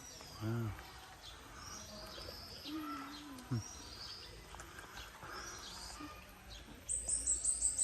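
Several birds chirping and calling, short high notes scattered throughout, with a fast run of very high chirps starting near the end.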